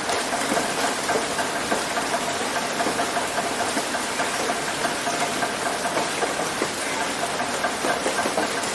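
Heavy rain hitting a roof: a dense, steady patter of countless drop impacts, with a faint steady tone underneath.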